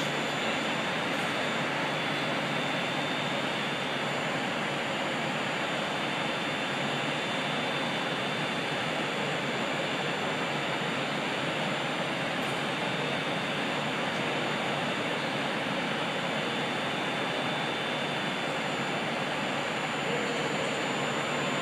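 Steady, unbroken station din of trains running and idling under a large train-shed roof, an even rushing noise with a faint thin whine high up throughout.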